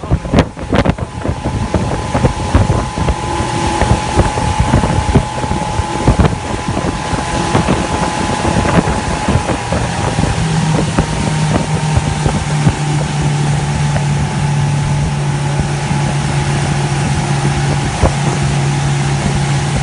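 Mercury Verado 200 outboard motor running with the boat on the water: a steady engine drone with a whine near 1 kHz, and a low hum that grows stronger about halfway through. Wind buffets the microphone with knocks and gusts, mostly in the first few seconds.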